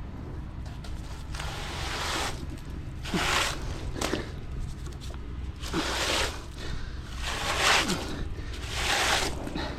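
Wet concrete being worked by hand, repeated scraping swishes about every second and a half over a low steady rumble.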